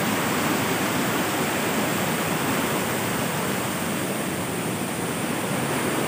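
Small waterfall and rocky stream rushing, a steady, unbroken roar of water.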